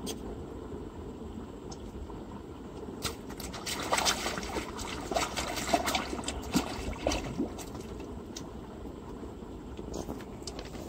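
A hooked catfish splashing and thrashing at the water surface, a run of splashes starting about three seconds in and lasting several seconds. Under it, a steady low background rush.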